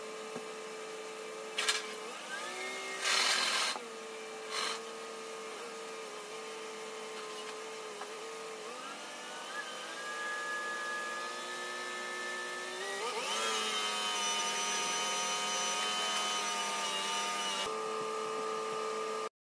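A tree crew's heavy machinery engine running steadily. Its pitch shifts up a little around the middle and revs up further about two-thirds of the way through, then holds. There are three short bursts of hiss in the first five seconds, and the sound cuts off just before the end.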